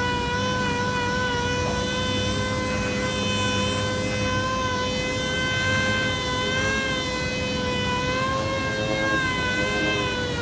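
Air-powered orbital sander running steadily against a plastic bumper cover: a continuous high whine over a low rumble, its pitch wavering slightly as the pad is pressed and moved over the panel.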